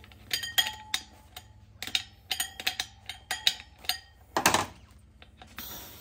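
Small metallic clicks and clinks at a dirt bike wheel's valve stem as its nut is spun down the threads and an air chuck is fitted. A short rush of air comes about four and a half seconds in, then compressed air starts hissing steadily into the tire's inner tube near the end.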